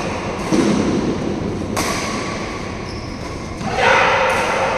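Badminton doubles rally: a low thump of footfalls on the court about half a second in, a sharp racket strike on the shuttlecock a little later, and a voice near the end, over steady hall noise.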